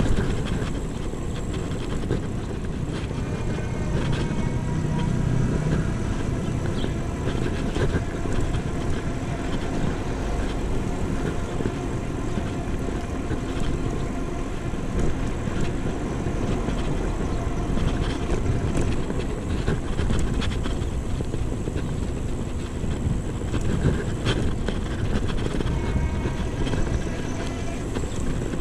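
Steady wind rush and tyre hum from an electric bike riding at about 25 km/h on a paved bike lane, with a faint whine that drifts slowly in pitch and a few light knocks from bumps.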